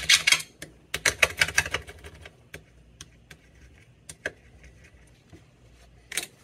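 Razor-blade scraper rasping quickly back and forth over wet glass, shaving cured repair resin off a filled windshield pit. There is a fast run of strokes at the start and another about a second in, then a few scattered lighter scrapes and a brief rub near the end.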